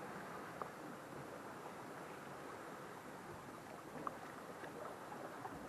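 Faint, steady wash of a calm sea against rock ledges, with a couple of small clicks about half a second and four seconds in.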